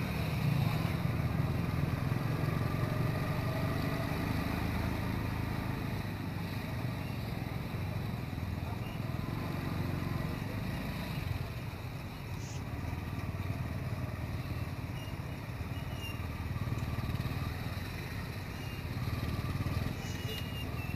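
Busy city street traffic heard from within it: a steady low engine hum and road noise as motorbikes and cars move alongside.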